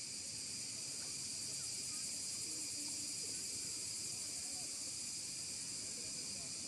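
Steady, high-pitched drone of an insect chorus, unchanging throughout.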